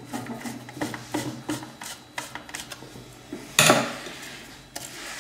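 Phillips screwdriver unscrewing the large screw in a coffee grinder's doser: a run of small clicks, taps and scrapes of metal and plastic, with one louder clatter about three and a half seconds in.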